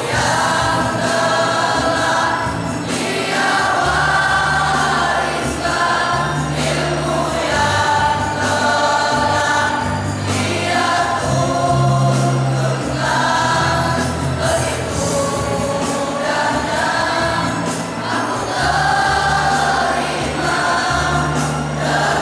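A choir of young male voices singing together, in held phrases that break briefly every couple of seconds.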